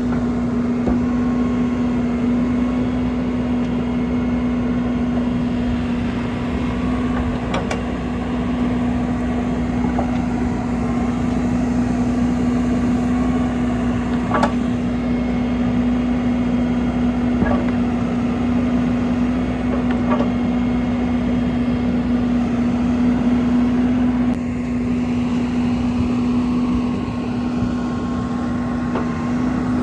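Caterpillar 450F backhoe loader's diesel engine running at a steady speed, with a constant hum and a few faint clicks.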